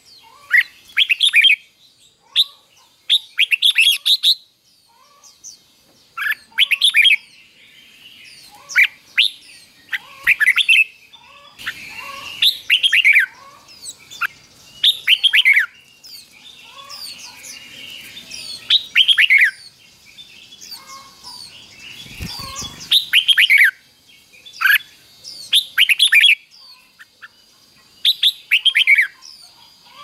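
Red-whiskered bulbul singing short, loud phrases of quick falling whistled notes, repeated every second or two. A brief low rumble comes about two-thirds of the way in.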